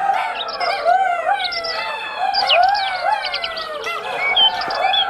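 A pack of wolves howling together in chorus: many overlapping voices in short rising-and-falling howls and yips, with no pause.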